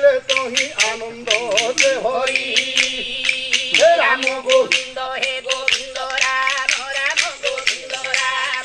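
Pairs of wooden dashkathia clappers struck in a steady run of sharp clacks, several a second. Over them a male voice sings long held notes in Odia devotional style.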